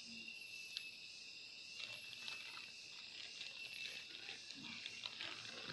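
Faint background with a steady high whine and a few scattered light clicks and taps.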